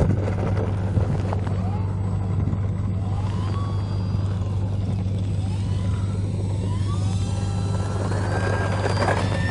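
RC Pilatus PC-6 Porter model's motor and propeller whining as it flies low, rising in pitch several times as the throttle is opened, over a steady low rumble.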